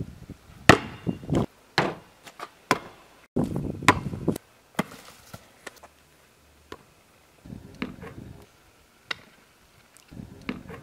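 Basketball bouncing on an asphalt driveway: a run of sharp, irregular smacks in the first few seconds, then single bounces now and then.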